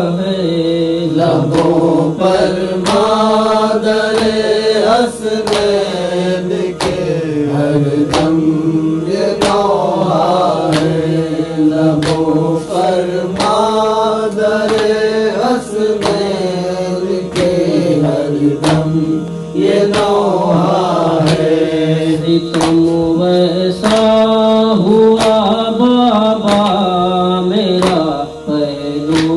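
Male voice chanting an Urdu noha (Shia lament) in long, wavering lines over a steady drone, with a regular percussive beat.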